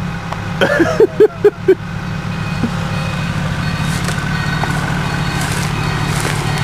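Chevrolet off-road vehicle's engine running steadily under load, slowly growing louder. A few short vocal sounds come about a second in.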